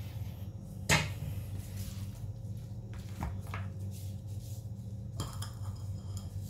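A sharp knock about a second in, then soft, scattered handling noises as gloved hands rub seasoning paste onto a raw beef rib roast on a wooden cutting board, over a steady low hum.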